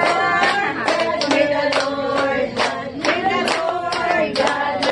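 A group of voices singing a song together, with hand clapping in time, about two or three claps a second.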